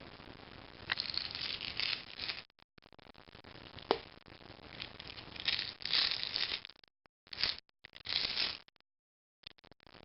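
Irregular scraping and rustling handling noises, with a sharp click about a second in and a louder one about four seconds in.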